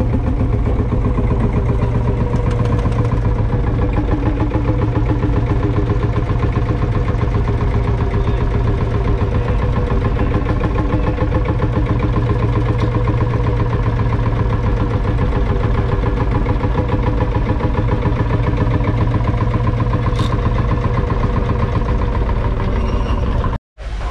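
1946 Field Marshall Series 1 Mark 2's 5.1-litre single-cylinder two-stroke diesel engine running steadily with a loud, rapid, even beat.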